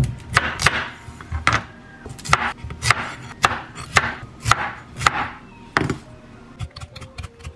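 Kitchen knife slicing through raw sweet potato and striking a wooden cutting board: about a dozen cuts at roughly two a second, with lighter taps near the end.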